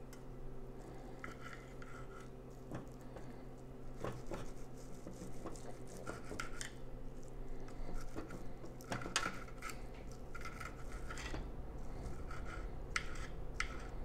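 A knife and fork scraping and clicking against a plate as a steak is cut. The strokes come irregularly, bunch up around the middle, and end in a few sharp clicks near the end.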